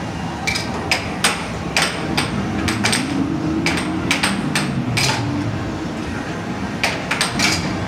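Air hockey puck and mallets on a Dynamo Fire Storm air hockey table: a fast rally of sharp plastic clacks as the puck is struck back and forth and glances off the rails. There is a short pause in the hits about two-thirds of the way through.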